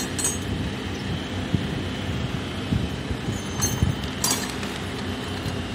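Crane engine running steadily, with a few short, sharp metallic clinks.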